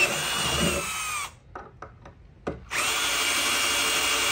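Ryobi cordless drill boring through 1/4-inch aluminium plate, the motor whining steadily under load. About a second in it winds down and stops, with a few light clicks during the pause. It starts again just under three seconds in and runs steadily.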